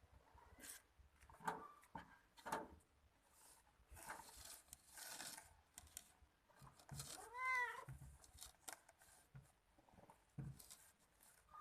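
A domestic cat's single meow a little past halfway, rising then falling in pitch, among faint scattered clicks and rustles.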